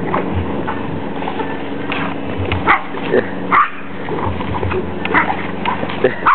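Dogs yipping and whimpering in short, sharp cries, the loudest about a third of the way in, again about halfway and near the end, over a steady low hum.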